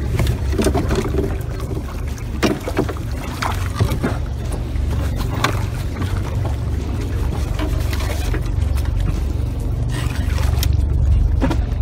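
Strong wind rumbling on the microphone, with lake water sloshing and a hooked catfish splashing at the surface on the line. Scattered short knocks and splashes come through now and then.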